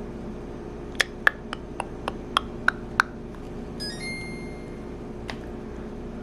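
Control-panel buttons on a ROVSUN portable clothes dryer being pressed to step through the drying modes: about eight quick clicks within two seconds, then a steady electronic beep for about a second, and one more click near the end.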